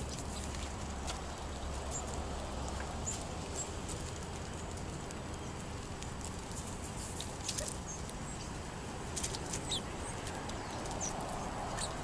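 Sparrows and California quail feeding on birdseed on concrete: scattered soft pecks, brief wing flutters and short high chips, thickest near the end, over a steady low background noise.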